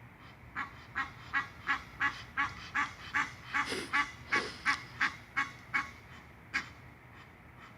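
Egyptian goose honking in a rapid, regular run of harsh calls, about three a second for some five seconds, then one last call.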